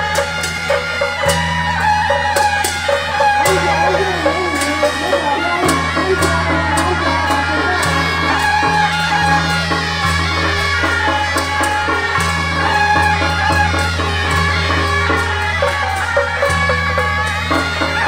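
Suona shawms playing a traditional procession tune together over a steady beat of cymbal and drum strikes, with a deep low note underneath that shifts every second or two.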